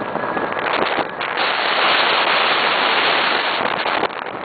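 Wind buffeting the microphone through an open window of a moving car: a loud, rough rush with crackling, heaviest in the middle and easing off near the end.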